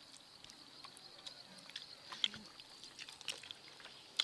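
Faint chewing and lip-smacking of people eating rice and fish curry by hand: scattered small wet clicks, the clearest about two seconds in.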